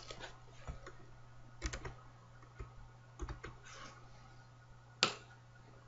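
Scattered sharp clicks of a computer mouse and keyboard, the loudest about five seconds in, over a faint steady low hum.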